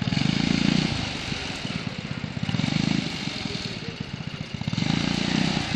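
Skid-steer loader engine running with a steady rapid firing beat. It swells louder three times, near the start, about halfway and near the end, as the machine is worked.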